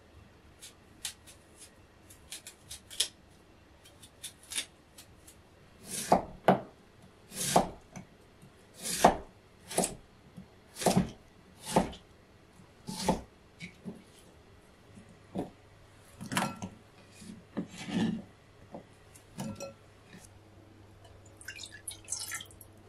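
Knife chopping on a cutting board: a few light taps, then a run of slow, separate chops roughly one a second, then some irregular ones. A brief rustle comes near the end.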